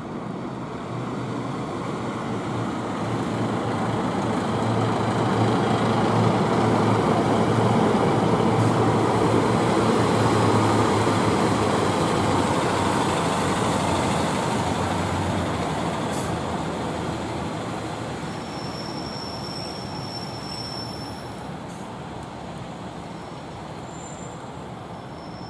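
Diesel multiple unit train running past, its engine hum and rolling wheel noise building to a peak and then fading away. Near the end a thin, high wheel squeal sounds for a couple of seconds.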